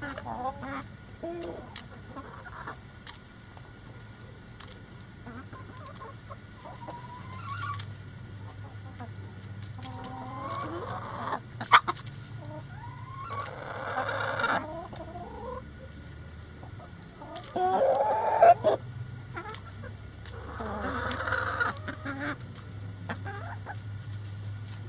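Backyard chickens clucking and calling, with several louder drawn-out calls of about a second each and a couple of sharp taps.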